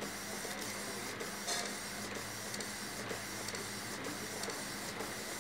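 Colour printer running as a sheet of printed business cards feeds out. It makes a steady hum and hiss with regular soft ticks.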